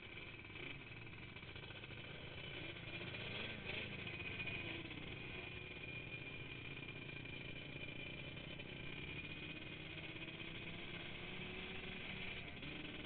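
Quad ATV engines running, their pitch wavering up and down.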